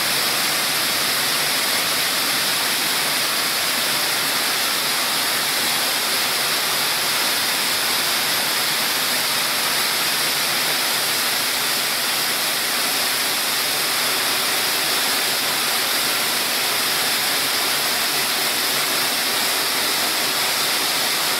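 Optical corn color sorter running: a steady, loud rushing hiss as corn kernels stream down its chutes.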